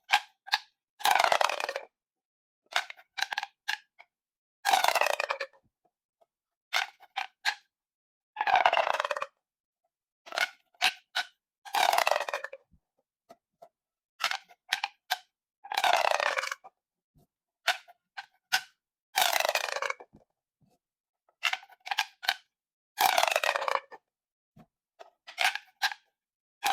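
Plastic pop tubes being stretched and squashed. Each cycle is a few sharp clicks followed by a ratcheting crackle just under a second long that falls in pitch. The cycle repeats about every three and a half seconds.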